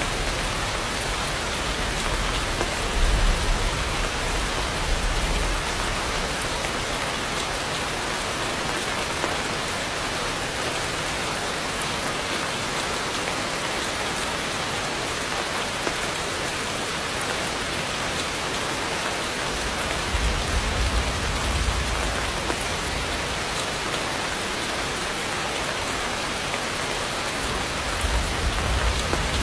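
Heavy rain pouring through forest foliage: a dense, steady hiss. A deep low rumble swells up during the first few seconds, again about twenty seconds in, and near the end.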